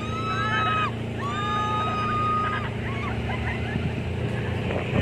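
Two long, shrill held screams, then shorter wavering shrieks, over the steady hum of an off-road vehicle's engine running.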